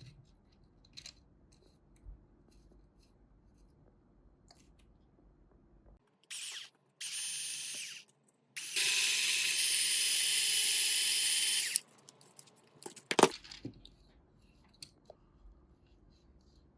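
A small electric motor runs in three bursts, two short ones and then a steady run of about three seconds with a whine. A sharp click follows, with light ticks and handling clicks around it.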